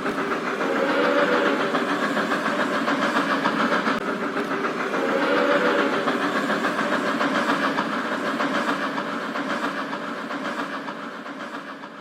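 Train running on the track: a steady hiss with a fast, even clatter, fading out near the end.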